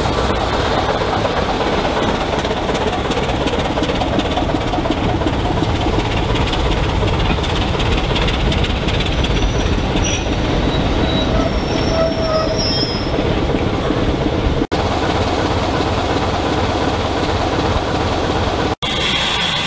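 A double-headed heritage train, Class 24 diesel and steam locomotive, gives a steady, heavy running noise. Faint wheel squeals come through about ten to thirteen seconds in, and the sound breaks off for an instant twice in the last few seconds.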